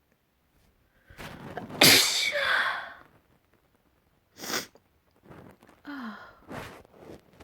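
A person sneezing openly, not stifled. A building in-breath from about a second in leads to one loud, full sneeze about two seconds in, with a voiced tail. A few short, sharp breaths follow.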